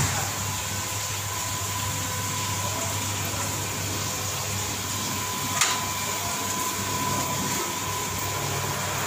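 Steady mechanical hum with a thin, high, steady whine held over it. A sharp click comes right at the start and another about five and a half seconds in.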